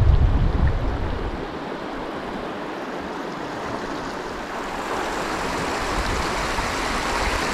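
Wind rumbling on the microphone for about a second and a half, then easing into a steady rushing hiss.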